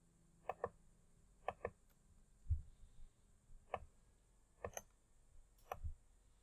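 Computer mouse button clicking: several quick press-and-release pairs about a second apart, with a dull low thump about two and a half seconds in.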